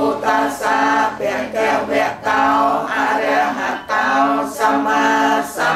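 A congregation chanting a Buddhist devotional chant in Pali in unison. The voices hold sustained pitched syllables in phrases, with brief breaths between phrases, about a second in, near two seconds, near four seconds and just before the end.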